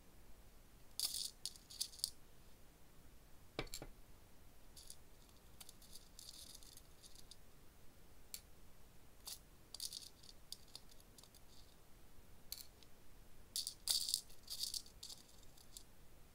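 Small iridescent ice-stone nail charms clicking and rattling against each other and their small plastic jar as they are stirred and picked out with a tool, in several short bursts.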